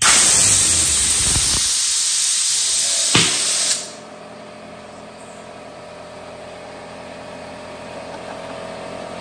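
Compressed air hissing loudly from an air hose nozzle into a thin glove for nearly four seconds, with a sharp snap just before the hiss cuts off abruptly. Then a steady mechanical hum follows: the air compressor running to refill after the blast.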